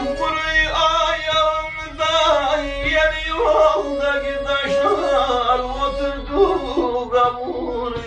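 Black Sea folk music: a man singing long, wavering notes over kemençe fiddle accompaniment.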